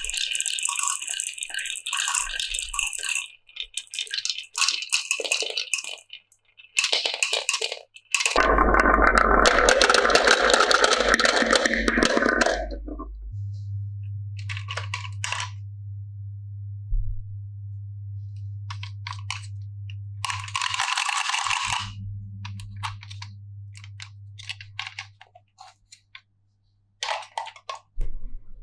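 Marbles clicking and rattling down a wooden marble run. About eight seconds in, a burst of loud dense clattering lasts roughly four seconds. After it comes a steady low hum with a few short bursts of rattling.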